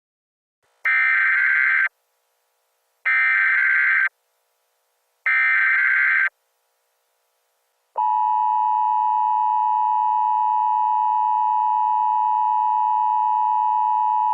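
Emergency Alert System tones: three one-second bursts of SAME header data, each the same and about two seconds apart, then a steady two-tone EAS attention signal starting about eight seconds in. Together they open a new emergency alert.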